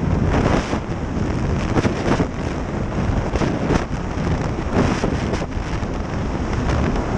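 Racing stand-up jet ski running at speed, its engine noise mixed with heavy wind buffeting on the microphone and water spray off the hull, with irregular slaps as it crosses the chop.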